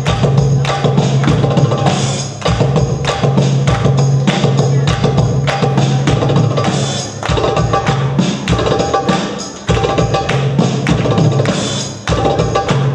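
Loud belly dance music driven by quick, busy percussion strokes over a steady low bass note, with short dips between phrases.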